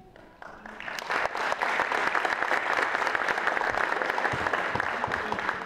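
Audience applauding. The clapping starts about half a second in, swells within a second, holds steady, and fades near the end.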